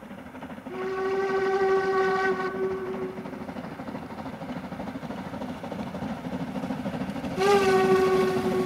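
Narrow-gauge steam locomotive's whistle blown in two long blasts, the first lasting a couple of seconds and the second near the end, over the growing rumble of the approaching train. The whistle is the warning for the level crossing ahead.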